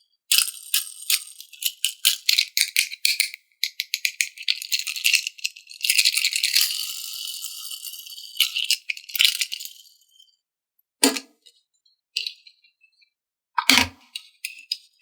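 Plastic toy parts and packaging being handled: a long run of crackling, rattling clicks, then a few separate knocks near the end.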